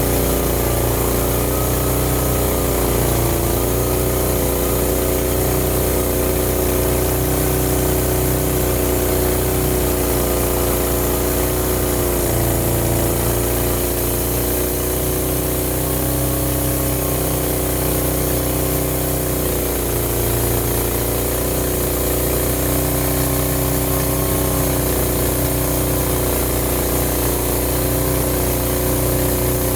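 Homemade band sawmill running on its engine, a steady drone whose pitch sags slightly a few times.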